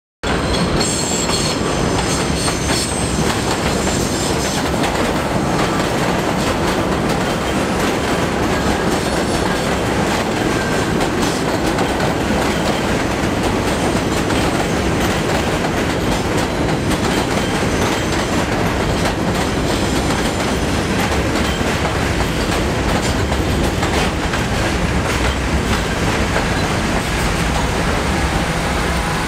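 Kawasaki R68A subway cars rolling into an elevated station, with a steady rumble and wheels clattering over the rail joints. A high wheel squeal comes in for a couple of seconds about a second in.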